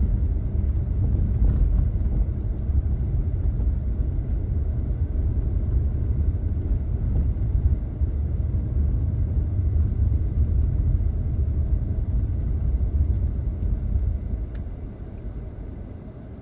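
A car driving slowly over loose sand, heard from inside the cabin: a steady low rumble of engine and tyres that eases off near the end.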